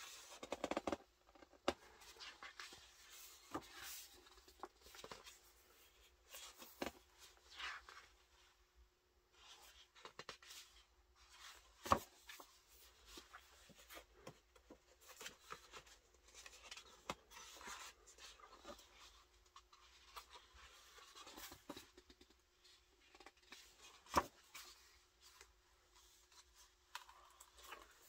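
Pages of a large hardcover photobook being turned one after another by hand: faint paper rustling and swishing, with a few sharper taps, the loudest near the middle.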